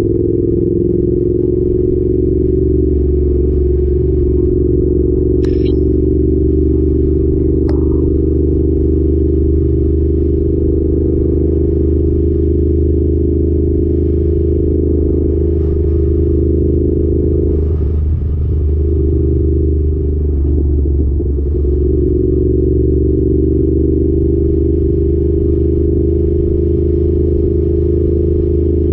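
Yamaha YZF R7's 689 cc parallel-twin engine through an Arrow exhaust, running steadily under way. The note breaks briefly twice past the middle before settling back to a steady pitch.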